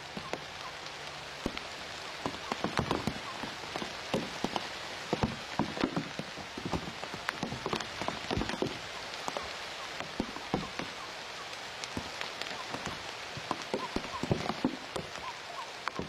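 Rain pattering on leaves and dry reeds: a steady hiss with many irregular drops striking close by.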